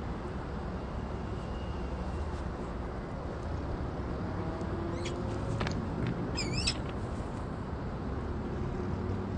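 Steady low rumble on the nest-box microphone, with a few sharp clicks about five seconds in and one brief high-pitched chirp from a peregrine falcon at the nest about six and a half seconds in.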